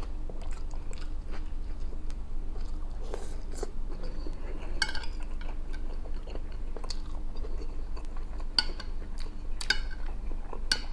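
Close-up chewing of a mouthful of rice and vegetables, with a metal fork clicking and scraping on the plate several times, the sharpest clinks about halfway and near the end. A steady low hum runs underneath.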